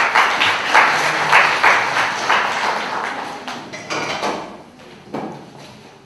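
Scattered hand clapping, loud at first and dying away over about four seconds. Near the end come a few separate knocks of metal-framed chairs being set down on a stage floor.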